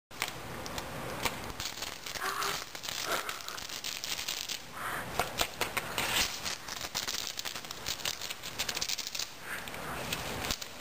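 Gift-wrapping paper crinkling and tearing as a Bengal cat claws and bites at a wrapped box, in irregular bursts with many small clicks.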